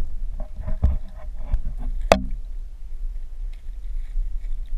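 Muffled sound from a GoPro in its waterproof housing held underwater in shallow water: a steady low rumble with a handful of knocks and bumps in the first two seconds, the loudest a little after two seconds.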